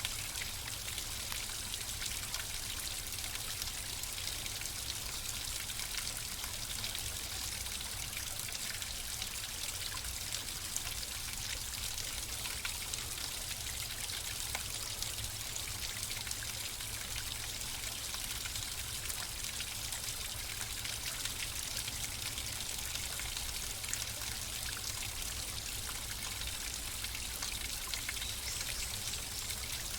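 Running water flowing steadily, a continuous rush with fine trickling and splashing.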